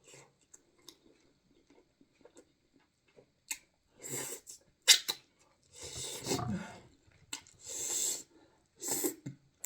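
Close-miked eating noises from fufu being eaten: after a quiet start, a handful of short wet slurps and mouth smacks with sharp clicks, one carrying a low falling hum.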